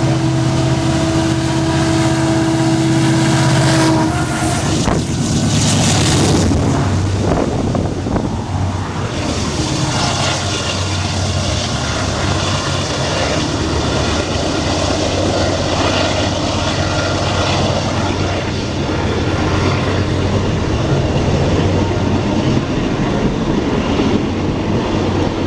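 A diesel freight train passing close by. The locomotive's multi-note air horn sounds for about four seconds and cuts off sharply. Then comes the steady low drone of the engines under the rushing noise of the passing train.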